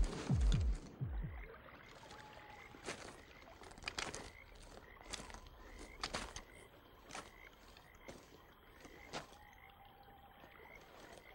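Night-time forest ambience of short chirping calls, repeated about once a second, with sharp clicks among them. A low, falling music sting dies away in the first second and a half.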